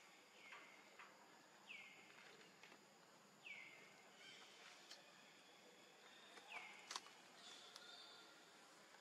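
Faint bird calls: four short notes, each sliding down in pitch and holding briefly, a second or more apart. A few faint clicks fall between them, the sharpest about seven seconds in.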